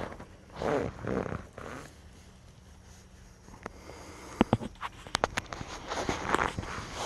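Sleeping-bag or bivvy fabric rustling with handling noise from close by, with a cluster of sharp clicks and taps a little past the middle.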